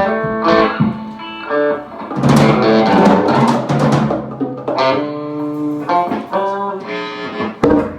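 Band music: guitar playing over a drum kit with a bass drum, with sustained chords and notes struck again and again.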